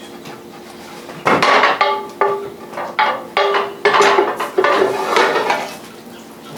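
Metal utensil scraping and clinking against a metal sauté pan in a quick series of strokes, some of them ringing briefly, starting about a second in and stopping shortly before the end: mushrooms and sauce being spooned out of the pan.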